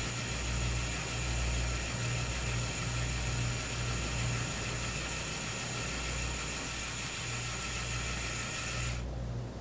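Steady low hum with a faint hiss over it; the hiss drops away near the end.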